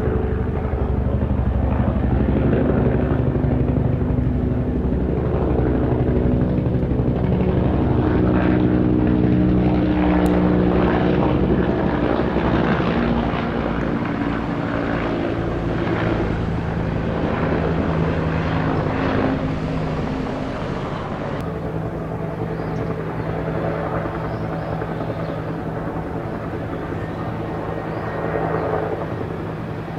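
Bell UH-1J utility helicopter flying overhead: the rapid beat of its two-blade main rotor over a steady engine and gearbox drone. Roughly two-thirds of the way through, this changes to an AH-1S Cobra attack helicopter flying past, also with a two-blade rotor, somewhat quieter.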